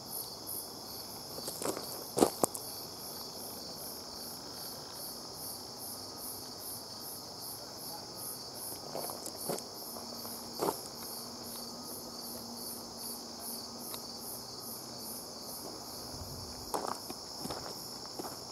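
An insect chorus chirring steadily: a continuous high trill with a second, higher call pulsing about twice a second. A few footsteps crunch about two seconds in and again near the end.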